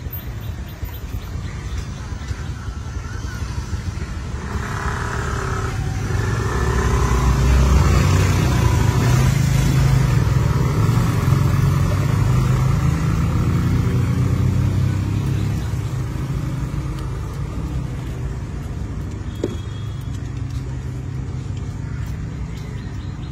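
Motor vehicle engine running as it passes, a low rumble that builds over several seconds, is loudest a third of the way in, then slowly fades.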